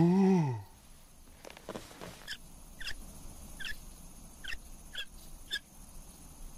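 A cartoon creature's short, deep vocal 'hm?' with a pitch that rises and falls. It is followed by a run of about seven faint, high, short chirps, roughly two a second.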